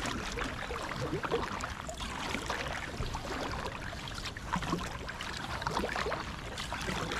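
Double-bladed kayak paddle strokes, the blades dipping and pulling through the water on alternate sides with repeated splashes and drips.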